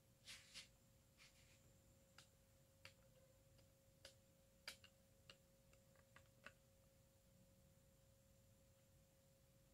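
Near silence: faint room tone with a steady low hum and a handful of faint, scattered clicks.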